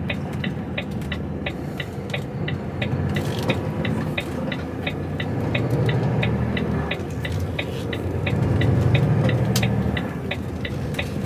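Lorry's turn indicator ticking evenly, about three ticks a second, over the steady running of the truck's diesel engine heard from inside the cab. The engine grows louder for a couple of seconds near the end.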